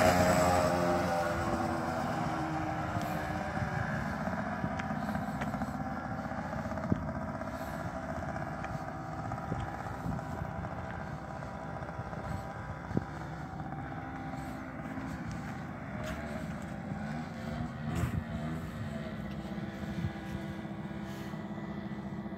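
50cc pocket bike engine buzzing as the bike rides away, fading in the first few seconds and then running on faintly at a fairly steady pitch in the distance. Two brief sharp clicks stand out, about a third of the way in and near the middle.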